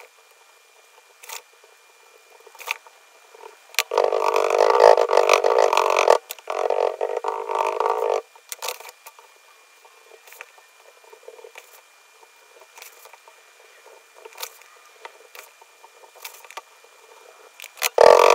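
Oil-bonded casting sand scooped from a plastic bucket and pressed by hand into a wooden moulding flask: light scattered clicks and crumbling, with two loud rasping stretches of about two seconds each, some four and six and a half seconds in. Near the end a wooden rammer starts packing the sand with dull thumps.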